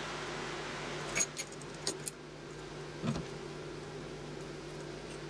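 A small mill runs with a steady hum, with a few light metallic clinks from tools at the drill chuck a little over a second in and around two seconds, and a duller knock near three seconds.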